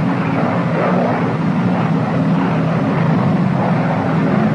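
P-61 Black Widow's twin radial piston engines droning steadily in flight.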